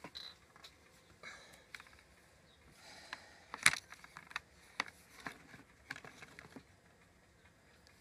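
Handling noise: scattered light clicks, taps and rustles as things are moved about on a tabletop, with one sharper click a little before the middle.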